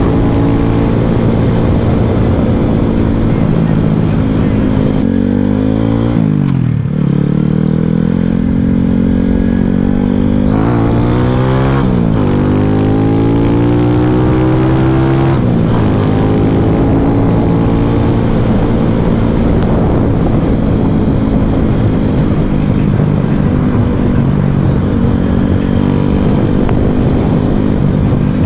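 Boom Vader minibike's single-cylinder four-stroke engine, bored out to 141cc, running under way. Its revs drop sharply about a quarter of the way in, then climb back, and fall and rise a couple more times around the middle as the throttle is rolled off and on. A low wind rumble sits underneath.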